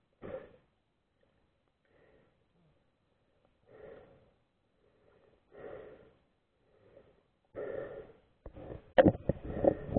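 Muffled underwater water sounds picked up through a submerged camera's housing as a swimmer's legs move: short swishing bursts about every two seconds, growing louder near the end with a few sharp knocks against the housing.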